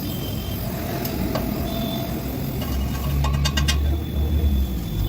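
A low, steady motor rumble that grows louder about two and a half seconds in, with a quick run of sharp clicks around three and a half seconds in.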